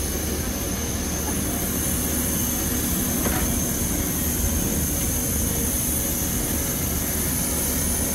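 Steady roar of a parked jet airliner's turbine running on the apron, with a constant high-pitched whine over a low hum.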